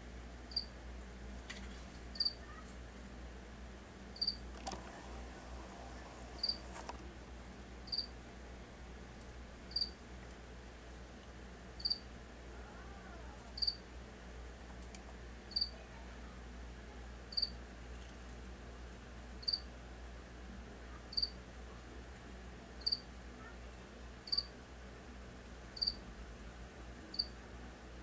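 A cricket chirping: a single short high chirp repeating evenly about every two seconds.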